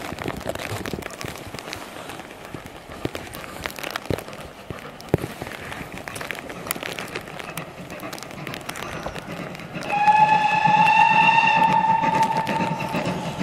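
A GWR pannier tank steam locomotive sounds one long steady whistle blast of about three seconds, starting about ten seconds in. The train's running noise rises underneath as it approaches.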